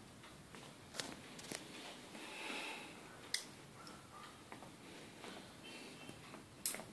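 Faint handling of pliers and monofilament fishing line while a knot is tightened, with four sharp little clicks spread through it, the last one the loudest.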